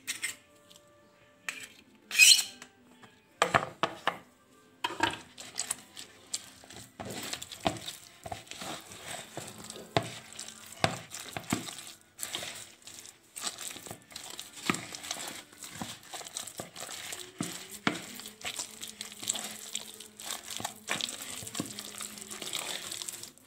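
Wooden spoon stirring and scraping a stiff mix of flour, egg and chopped spring onion in a plastic bowl. It starts as scattered knocks, with one loud sharp knock about two seconds in, then becomes steady rapid scraping and clicking as the dough comes together.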